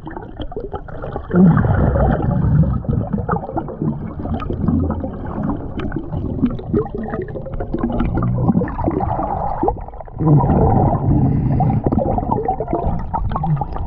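A diver breathing underwater through the regulator of a BLU3 Nomad surface-supplied air system, heard muffled through the camera housing: a gurgling rush of exhaled bubbles. It swells into two big bubble surges, about a second in and again about ten seconds in.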